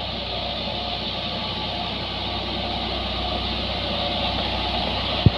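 Diesel truck engine pulling up a steep climb under load, growing slowly louder as the truck approaches. A sharp click sounds near the end.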